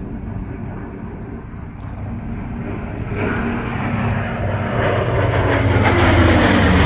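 Piston engines of propeller-driven warbirds, a twin-boom P-38 Lightning among them, flying by together. The engine drone grows steadily louder from about three seconds in, and its pitch slides down near the end as they pass.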